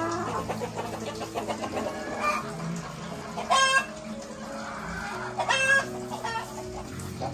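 A flock of domestic chickens clucking, with two short, loud calls from one of the birds about three and a half and five and a half seconds in.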